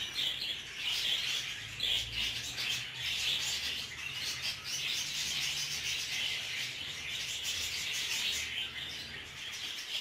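Budgerigar chicks chirping in a steady stream of high calls, with soft rubbing as they are handled.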